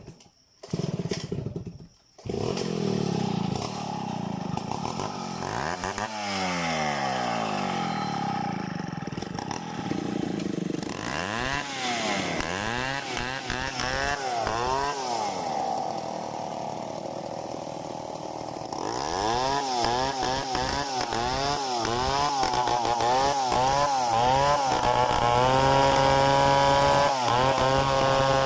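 Stihl 070 two-stroke chainsaw running after a short burst about a second in. It is revved up and down over and over, then held steady at high revs near the end.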